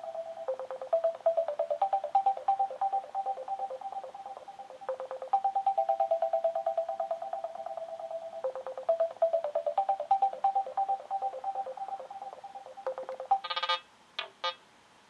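Sonim XP6 phone's ringtone playing through its loudspeaker: a rapidly trilling electronic melody that repeats the same phrase every few seconds. Near the end it stops and the next ringtone begins with a few short, brighter beeps.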